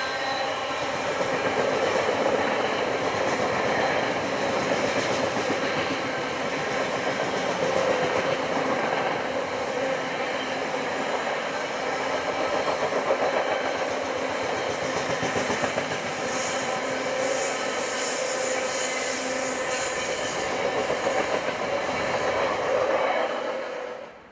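Container freight wagons rolling past on the rails, a steady, continuous rail noise from the wheels that cuts off suddenly near the end.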